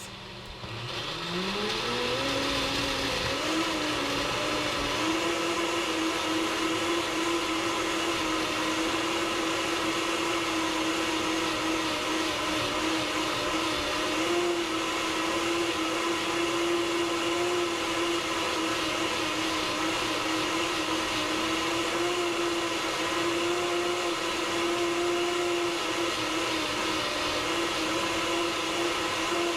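Vitamix S55 personal blender running its smoothie program on ice, chopped raw beet, apple and carrots: the motor starts low and rises in pitch over the first few seconds as it speeds up and pulls the ingredients down. It then runs at a steady high speed with a slight wavering in pitch.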